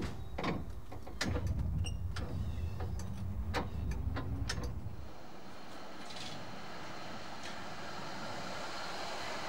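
Tram running: a deep rumble inside the cab with sharp clicks and knocks, and a whine rising in pitch as it gathers speed. About five seconds in the sound changes to a steady rolling rush of a tram moving along the track.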